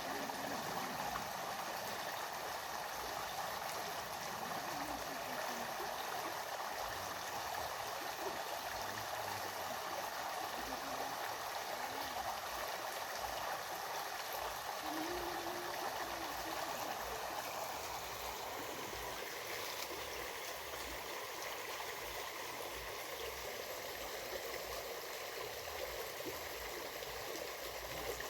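A stream flowing steadily, an even rush of running water.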